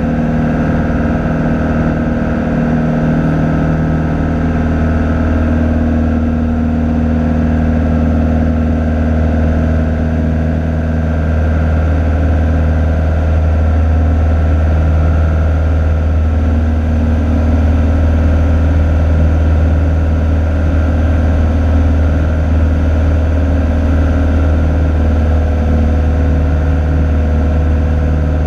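Cessna 182's single piston engine and propeller running steadily, heard inside the cabin in flight as a continuous low hum with steady tones above it.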